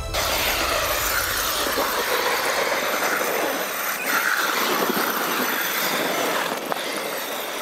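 EM-Racing Tyrant 1/8-scale RC monster truck driving on snow: its brushless electric motor whines, rising and falling with the throttle, over a steady hiss of the tyres throwing snow.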